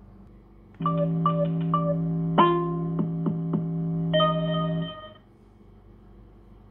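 Divoom Ditoo retro pixel-display Bluetooth speaker playing its power-on jingle: a short synthesized chime tune over a held low chord. It starts about a second in, has a few quick notes and taps, and ends on a bright final chord after about four seconds.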